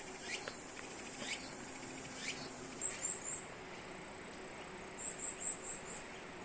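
Insects singing in a steady high trill, with about three falling calls, one a second, in the first half and two runs of short high chirps, a few near the middle and five in quick succession near the end.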